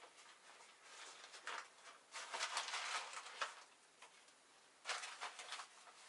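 Rustling and crinkling of a spice packet being handled to shake out ground pepper. There is a longer burst about two seconds in and a shorter one near the end.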